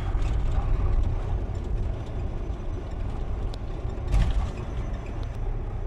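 Steady low drone of a truck's engine and road noise heard inside the cab while driving slowly, with a brief knock about four seconds in.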